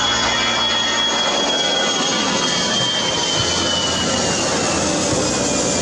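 Airbus A380's jet engines on landing approach: a steady rushing roar with a high whine that slowly falls in pitch.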